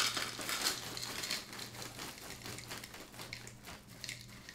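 Bran flakes and crunchy clusters pouring from a plastic cereal-box liner bag into a bowl: a run of rattling pattering with the bag crinkling, loudest for the first second and a half and then tapering off.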